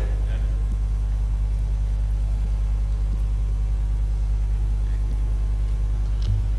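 Steady low electrical hum with a faint high-pitched whine above it, unchanging throughout.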